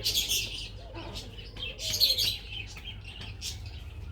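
Small birds chirping in quick high-pitched bursts, busiest at the start and again about two seconds in, over a steady low hum.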